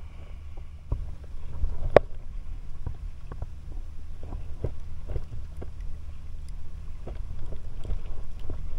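Sounds aboard a fishing kayak on calm water: a steady low rumble of wind on the microphone under irregular light knocks and clicks, the sharpest and loudest about two seconds in.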